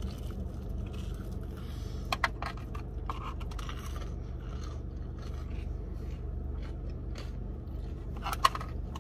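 Crunchy bites and chewing of Korean fried mozzarella corn dogs with a crisp, hot-Cheeto-coated batter crust, with soft crackles and a couple of sharp clicks, the loudest near the end. A steady low hum lies underneath.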